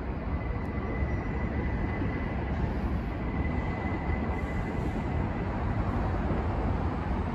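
Distant subway train running on the elevated structure: a steady low rumble, with a faint thin high whine for about the first five seconds.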